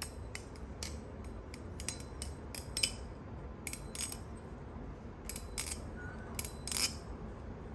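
Orca balisong trainer clone being flipped: its metal handles and trainer blade clack against each other in an irregular run of sharp metallic clicks, several a second.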